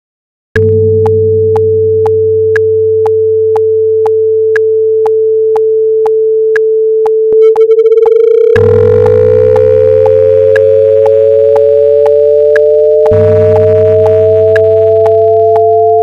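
Computer-generated tones. A steady pure tone starts about half a second in, over a low drone, with a short click about twice a second. About halfway through, a second tone joins and glides slowly upward, beating against the first.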